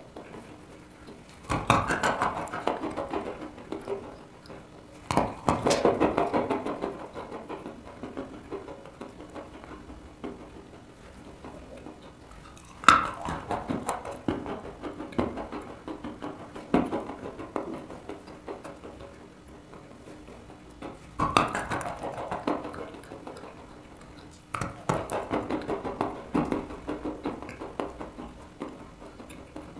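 A chunk of dry chalk bitten and chewed close to a clip-on microphone. There are five bites, each a sharp snap followed by a few seconds of crunchy chewing that fades.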